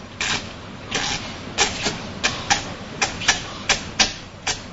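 A run of about a dozen sharp taps at an uneven pace, two or three a second.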